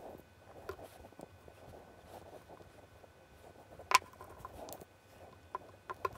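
Quiet handling of glued wooden boat parts and a glue bottle on a wooden workbench: light rubbing and small clicks, with one sharp knock about four seconds in.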